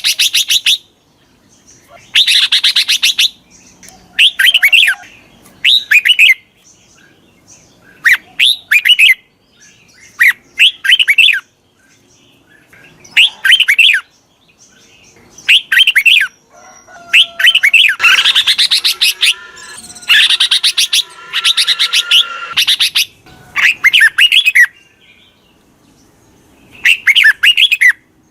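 Red-whiskered bulbul song: short, loud phrases of quick chirping notes repeated every couple of seconds, with a longer, busier run of song past the middle. It is a decoy call of the kind played to draw wild bulbuls in.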